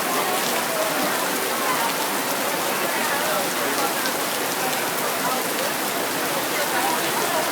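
Steady rain falling hard in a thunderstorm, a constant hiss with scattered drops ticking close by.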